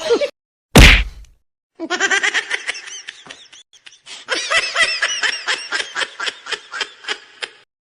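A sudden loud hit about a second in, then a long burst of laughter in quick rhythmic pulses, a laugh sound effect.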